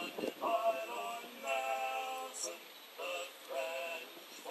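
Music with a sung melody: a series of held notes, each steady in pitch and about half a second to a second long, with short breaks between them.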